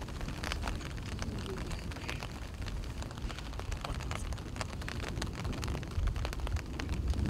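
Outdoor ambience: a steady low rumble with scattered, irregular light ticks and crackles.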